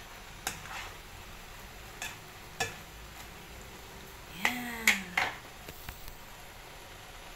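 Spatula knocking and scraping against a nonstick wok while stir-frying vegetables and prawns: a few sharp taps, then a louder cluster of clanks with a brief falling squeal about four and a half seconds in, over a steady low hiss.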